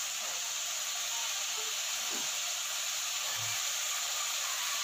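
Steady hiss from a stovetop pot of mutton cooking over a lit flame, its water boiled off.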